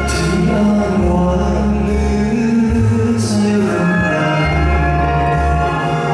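A man singing a slow song into a handheld microphone over backing music, holding long notes with vibrato.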